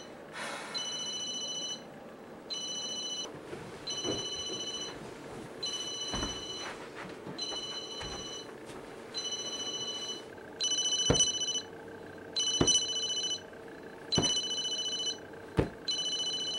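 Phone ringing over and over: a high electronic ring lasting about a second, repeating every second and a half or so, louder from about ten seconds in. Several short dull thumps fall between the rings.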